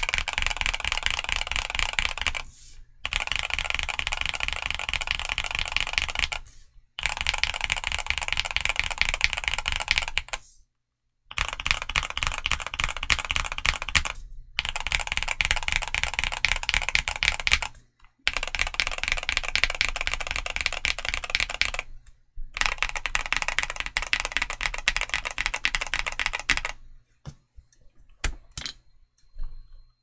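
Typing on a Skyloong GK87 Pro mechanical keyboard with Gateron G-Pro Brown tactile switches and MDA-profile PBT pudding keycaps. Dense runs of keystrokes are broken by short pauses every few seconds, with a few scattered single keystrokes near the end.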